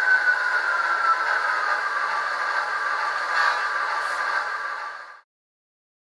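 Bachmann HO scale ALCO S4 model locomotive running with its Soundtraxx sound decoder playing diesel switcher sounds through a small speaker, with a whine that falls in pitch over the first second or so and then holds steady. The sound fades and cuts off about five seconds in.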